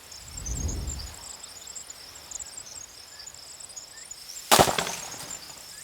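Insects chirping steadily, with a soft low rumble near the start and a single sharp crack about four and a half seconds in.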